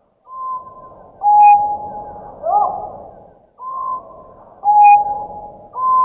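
Slowed-down light-vented bulbul and black bulbul song, made into a reconstructed Microraptor zhaoianus call. Each phrase is held whistled notes stepping down in pitch, then an upward-swooping note, with a short click partway through. The phrase repeats about every three seconds.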